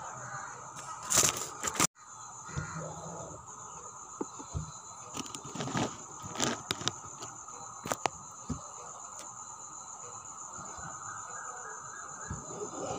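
Hand embroidery on fabric stretched tight in a frame: a needle punching through the cloth and thread being drawn through, heard as scattered sharp clicks and short rasps, loudest about a second in. A steady high chirring runs in the background.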